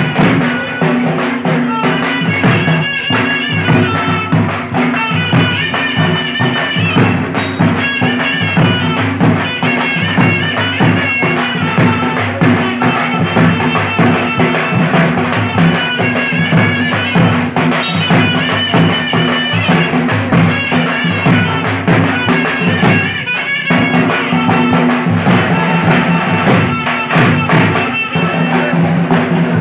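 Several dhak, the large Bengali barrel drums, beaten fast and continuously with sticks, with a wind instrument playing a melody of held high notes over them. The melody and drumming break off briefly a little over two-thirds of the way through, then resume.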